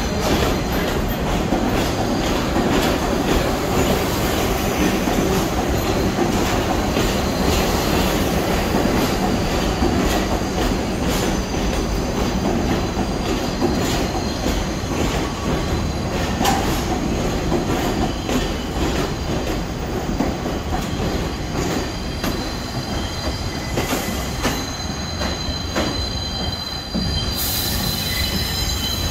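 New York City subway train rolling along the platform, its wheels clicking over the rail joints and squealing. Near the end the sound cuts to another subway train approaching with a high, steady wheel squeal.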